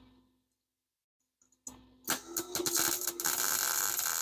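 Wire-feed (MIG-type) welder striking an arc, with a couple of short sputters and then a steady, loud crackle of the weld about two seconds in.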